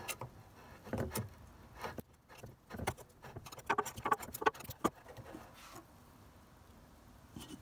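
Lid of a metal paint tin being pried up around its rim with a flat metal tool: a series of sharp metallic clicks and pops over the first five seconds as the lid loosens, with one small knock near the end.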